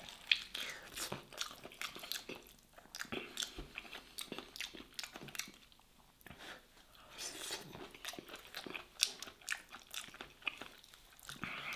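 A man biting into and chewing an air-fried Iraqi stuffed pepper close to the microphone: irregular crunches and wet mouth clicks, with a sharp bite just after the start and a quieter stretch around the middle.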